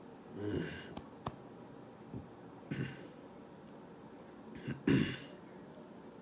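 A man stifling burps in his throat, three short ones, the last and loudest about five seconds in.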